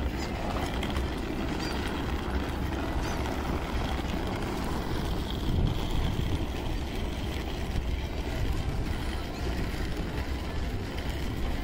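Busy city-street ambience: a steady low rumble of traffic with pedestrians walking by.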